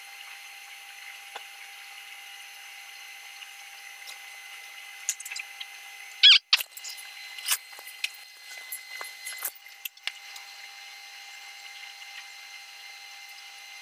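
TIG welding arc on a steel pipe joint: a steady high hiss with a faint constant whine, broken in the middle by a scatter of sharp clicks and crackles, the loudest about six seconds in.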